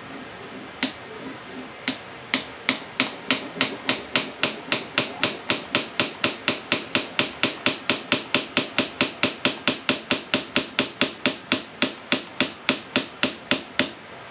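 French press plunger pumped up and down through milk to froth it, giving a run of sharp plastic clacks. A few come spaced out at first, then a quick even rhythm of about three to four a second that stops near the end.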